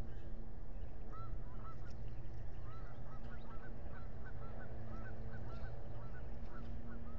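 Osprey calling: a long run of short whistled chirps, about three a second, over a steady low hum.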